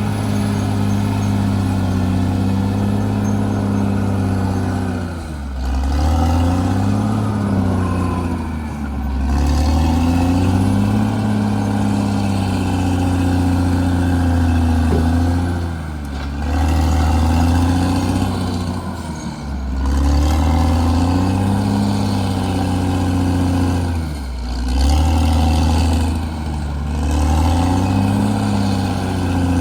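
Caterpillar D6R XL bulldozer's diesel engine running hard, its pitch sagging and climbing back about six times as the revs rise and fall.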